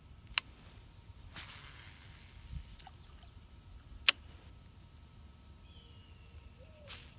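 A cast with a fishing rod and reel: a light click, a short hiss of line going out, and about two seconds later a sharp, loud click from the reel. Insects trill steadily high in the background, and faint short call-like whistles come near the end.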